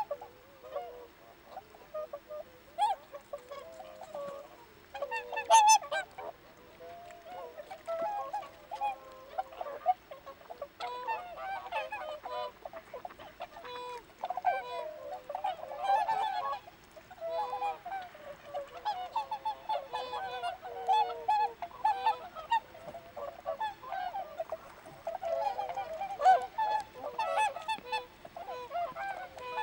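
A flock of whooper swans calling: many overlapping honking calls with no break, the loudest about five to six seconds in.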